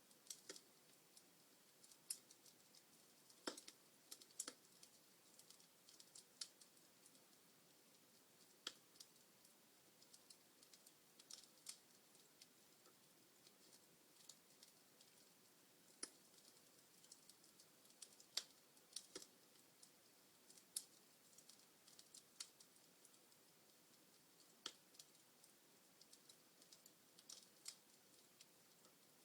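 Wood fire crackling softly: scattered sharp pops and snaps at irregular intervals over a faint steady hiss.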